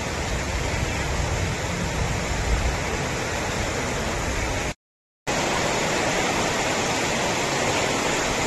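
Heavy rain pouring down onto a flooded road: a steady hiss. It drops out completely for about half a second some five seconds in, then carries on.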